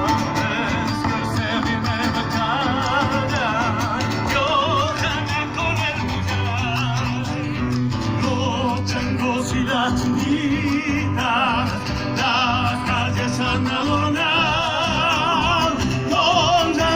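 A Latin American folk song: a singer with marked vibrato over steady instrumental accompaniment.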